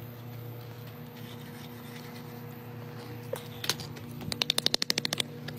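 A pig being scratched with a garden rake: fast scraping strokes, about eight a second, begin about halfway through, over a steady low hum.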